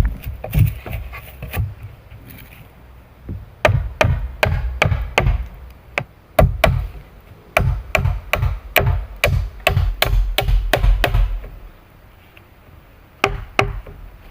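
Wood being chopped with a blade: runs of sharp, irregular blows, several a second, broken by short pauses of a second or two.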